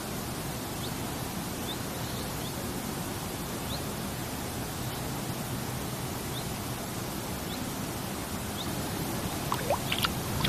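Steady rush of shallow river water with faint short high chirps now and then. Near the end come a few quick plops and splashes in the water.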